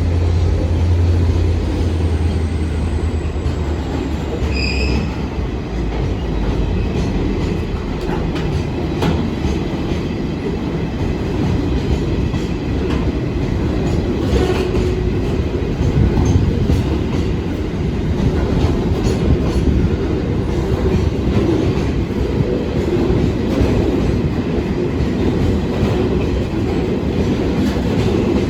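Train running past on the rails: a steady heavy rumble of wheels, with clicks as they cross rail joints and a short high wheel squeal about five seconds in.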